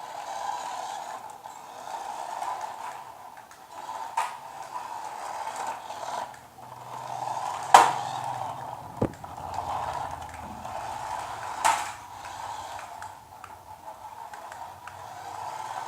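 Mini RC car's small electric motor whining, rising and falling as it speeds up and slows, with four sharp clicks or knocks, the loudest about halfway through.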